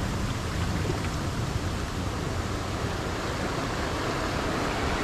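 Sea surf washing over a boulder shore in a steady rush, with wind rumbling on the microphone.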